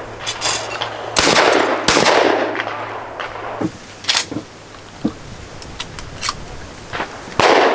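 Shotgun shots at clay targets: two blasts close together about a second in, each trailing off in a short echo. Sharper, smaller cracks follow, and another blast comes near the end.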